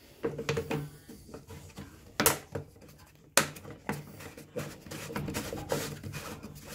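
Black plastic louvred air outlet vent being pressed onto its mounting ring on an aluminium chequer-plate heater box: handling scrapes with a series of sharp plastic clicks and knocks, the two loudest about two and three and a half seconds in.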